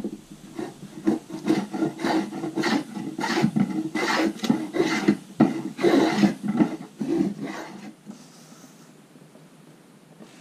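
Small hand plane shaving the edge of an old pine slat in quick rasping strokes, about two to three a second, trimming it a little at a time to fit. The strokes stop about eight seconds in.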